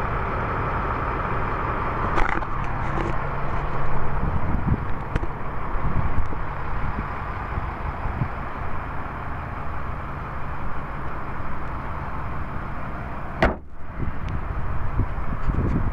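Ford 6.0-litre Power Stroke V8 turbo diesel idling steadily, with scattered knocks and one sharp knock about 13 seconds in.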